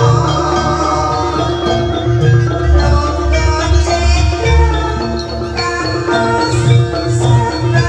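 Live gamelan music accompanying a jaranan dance: a ringing metallophone melody over a steady, pulsing drum beat.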